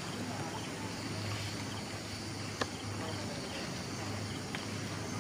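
Steady chirring of insects and crickets in forest, with a single sharp snap about two and a half seconds in.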